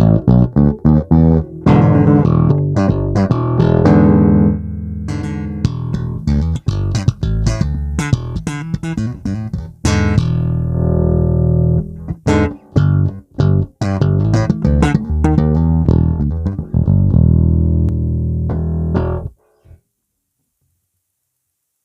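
Fender Player Plus Meteora electric bass played on its neck pickup: a line of plucked notes and held low notes. The playing stops a couple of seconds before the end, and silence follows.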